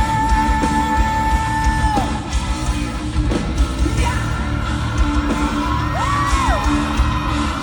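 Live rock band playing, with the singer holding one long high note that ends about two seconds in. Drums and guitars carry on after it, with yells and whoops over the band.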